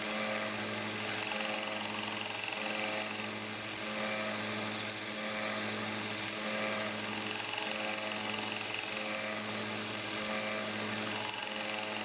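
1x30 belt sander running with a fine-grit belt while a pocket knife's steel screwdriver blade is pressed against it. Its motor hums steadily under a constant hiss of abrasive on steel.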